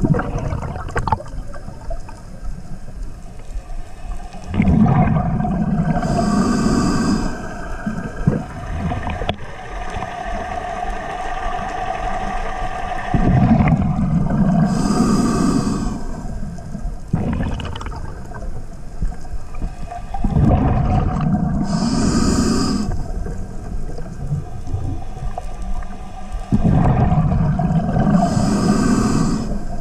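Scuba diver breathing through a regulator underwater. Four exhalations, about every seven seconds, come out as bubbling rumbles, with the regulator's hissing inhalations between them.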